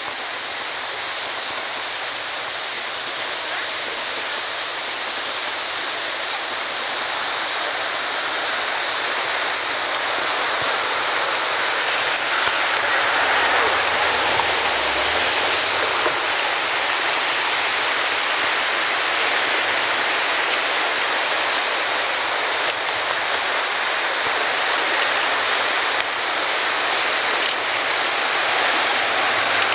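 Muddy river in flood rushing past: a steady, even rush of fast-moving water.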